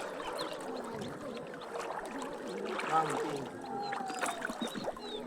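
Floodwater moving with a steady, quiet wash, and faint voices in the distance.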